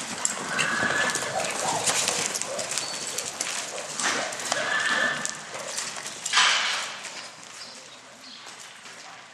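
Roping horse and calf galloping on soft arena dirt: a rush of hoofbeats that fades after about seven seconds.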